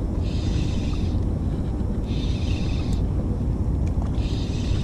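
Spinning reel being wound in to bring up a hooked fish: a high whirr in three spells of about a second each, about a second apart. A steady low rumble runs underneath.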